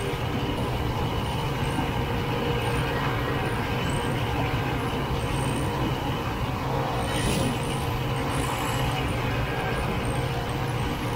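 Snowmobile running steadily at cruising speed, heard from on board the moving sled: an even engine hum under a rushing noise that holds without a break.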